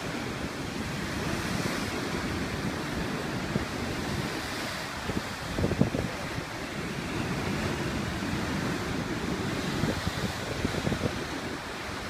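Heavy surf from a rough sea breaking and washing over rocky shore ledges, a continuous rush of foaming water, with wind buffeting the microphone. The sound swells to its loudest about six seconds in.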